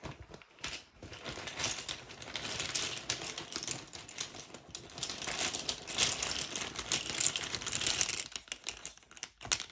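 Small tarot tiles being shuffled by hand, a dense run of rapid clicking and clattering as the tiles knock against each other. The clatter stops shortly before the end.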